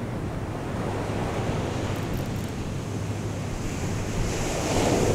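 Ocean surf breaking and washing up a sandy beach, with wind buffeting the microphone. The surf swells louder about four and a half seconds in as a wave comes in.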